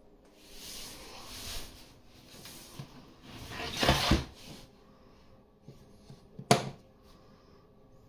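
Rustling handling noise, twice, the second time louder, then one sharp click a little after six seconds in.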